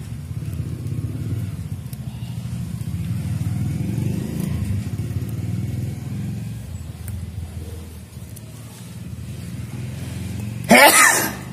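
A motor vehicle engine running steadily, growing louder over a few seconds and then easing off. Near the end, one short, loud vocal burst from a person.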